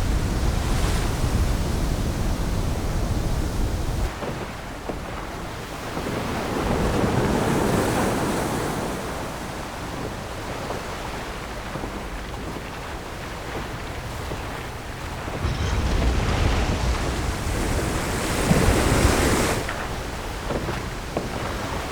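Designed storm-at-sea sound: heavy ocean waves surging and crashing over a deep rumble and wind. Two big swells build, the second the loudest, then cut back suddenly near the end.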